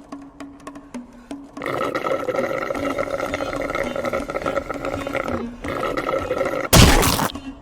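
Cartoon sound effects over a faint steady hum: a long sustained sound holding several steady pitches for about four seconds, then a short, loud, noisy burst near the end.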